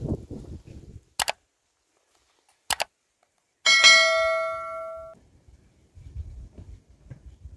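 A single bell-like ding, struck once and ringing away over about a second and a half. It is preceded by two pairs of short clicks in otherwise dead silence.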